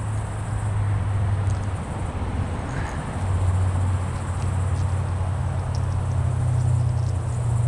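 Insects droning steadily in a high continuous band over a steady low hum and a noisy hiss.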